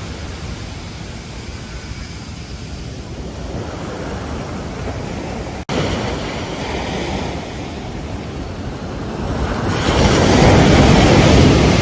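Ocean surf on a beach: a steady wash of water, with a wave breaking and swelling loudest near the end. A brief dropout cuts the sound about halfway through.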